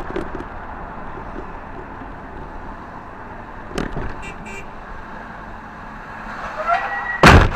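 Road and engine noise inside a braking car's cabin, with a knock about four seconds in. Near the end a horn sounds briefly, then a loud crash as a white cab-over truck strikes the car.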